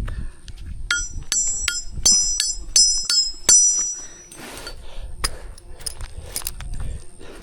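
Hammer striking a metal nail being driven into a tree trunk: a run of sharp, ringing metallic blows at about three a second, then a few slower, scattered knocks.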